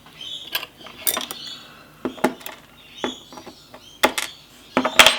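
Small metal clicks and clinks from the tools and brass parts of a Lockwood 334 padlock core as its key pins are taken out. The clicks are sharp and irregular, about seven in all, with the loudest cluster near the end.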